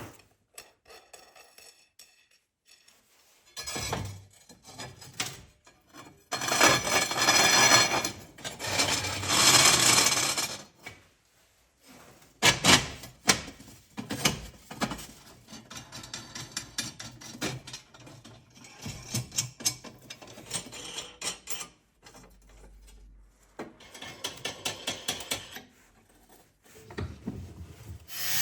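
Hand-tool work at a workbench: a few bursts of scraping, the loudest in the first half, among many scattered knocks and clicks.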